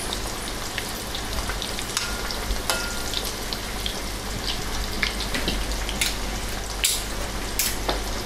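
Flour- and egg-coated chicken pieces deep-frying in hot soybean oil in a wok: a steady sizzle full of small crackles, with a few sharper pops near the end.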